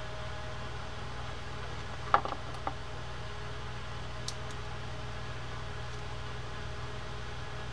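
Steady low background hum, with a sharp click about two seconds in and two lighter clicks just after, as small metal parts of the reel's side plate are worked with needle-nose pliers.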